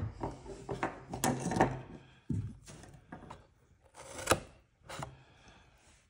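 Small multitool scissors snipping through cardboard: a series of short, irregular cuts and clicks, with a sharper click about four seconds in.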